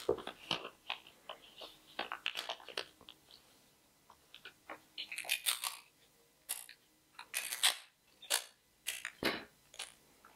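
Paper and clear Scotch tape being handled and pressed onto a printing block: irregular crinkling and rustling with short scratchy taps, and two longer rasps about five and seven and a half seconds in.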